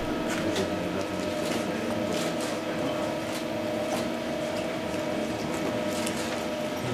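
Steady hum with scattered short, high clicks at irregular intervals, about ten in all.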